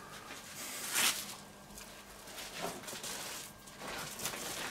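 Cling film rustling and crinkling as hands roll a filled meat fillet in it, with one louder crinkle about a second in.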